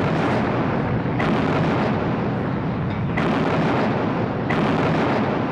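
Battleship heavy guns firing, one loud boom about every one and a half to two seconds, three in all, each followed by a long rolling echo that runs into the next.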